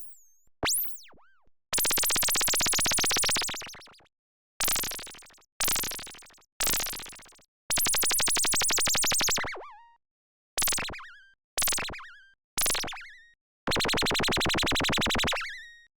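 Synthesized sci-fi laser beam sound effects played one after another: about nine separate buzzy zaps, some short and some held for about two seconds, each starting abruptly and fading away.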